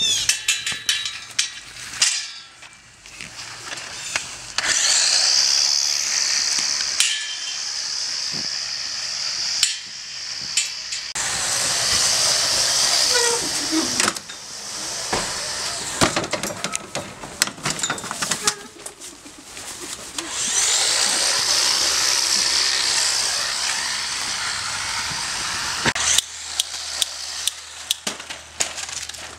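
Chainsaw running in long high-pitched buzzing stretches of several seconds each, broken by sharp knocks and clatter.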